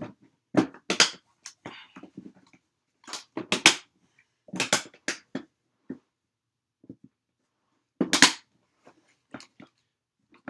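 Sharp knocks and clatter of an air rifle being handled and fitted into a thin plastic hard rifle case, in several short clusters, the loudest knock about eight seconds in.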